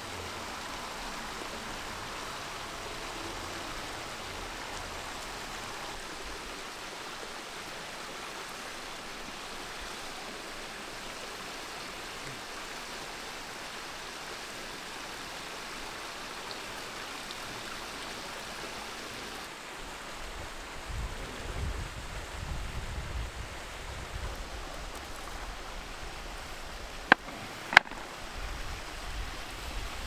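Mountain stream rushing over rocks, a steady wash of water. From about two-thirds of the way in, a low rumble joins it, and near the end there are two sharp clicks a second apart.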